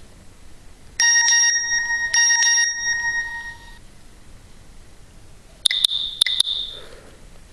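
Nokia 6124 classic phone's speaker playing a short electronic tone: two bell-like chimes about a second apart, each ringing on briefly. About five and a half seconds in comes a quick cluster of sharp, high pinging clicks that fades out.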